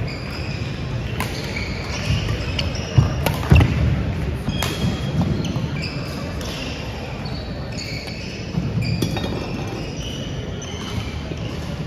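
Athletic shoes squeaking on a gym's hardwood floor between badminton rallies, with low footfall thuds and a few sharp clicks, in a large echoing hall.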